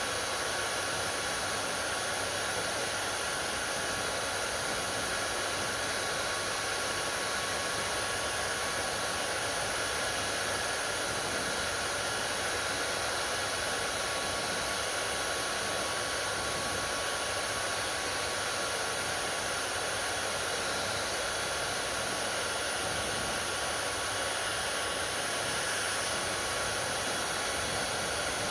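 Hair dryer running steadily on one setting: an even rush of air with a faint steady whine.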